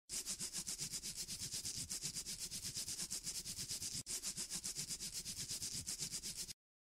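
A rhythmic rasping, scratching noise at about eight strokes a second, with a short break about four seconds in; it cuts off suddenly near the end.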